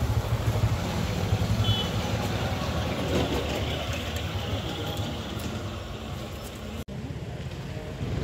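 Steady low rumble of outdoor street noise, with a brief dropout about seven seconds in.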